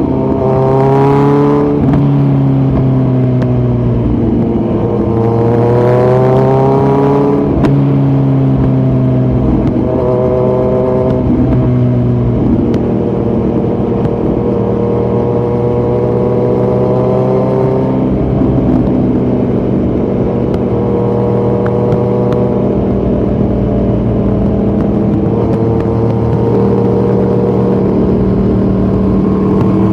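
2018 Kawasaki Z900's inline-four engine running through an open Yoshimura muffler and Delkevic headers with no dB killer, under way. The pitch climbs and falls several times in the first dozen seconds as it accelerates and lets off, then holds fairly steady at cruising revs.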